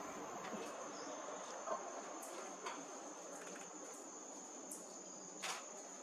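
Insects calling in one steady high-pitched tone, with a few short sharp clicks over it, the strongest about five and a half seconds in.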